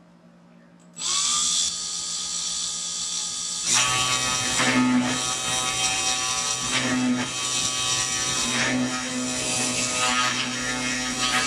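Small CNC machine's spindle motor whining at speed as its end mill cuts into a block of wood. The whine starts about a second in, grows fuller a few seconds later as the bit bites in, and swells and dips every couple of seconds as the cutter moves along the wood.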